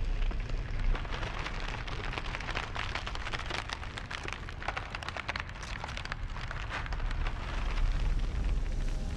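A dense crackling and crumbling sound, like a charred mass breaking apart, over a steady deep rumble. The crackle is thickest through the middle and thins out near the end.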